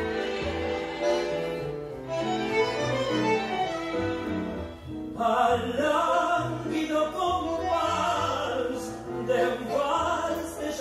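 Tango waltz (vals) played by a tango ensemble of bandoneon, violins, piano and bass. The texture changes about five seconds in, after a brief dip.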